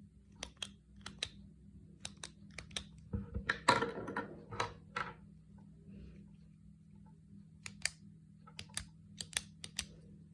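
Retractable pen clicked over and over: sharp clicks, often in quick pairs, in irregular runs with a pause of about two seconds around the middle. A louder burst of handling noise comes with the clicks about three and a half seconds in.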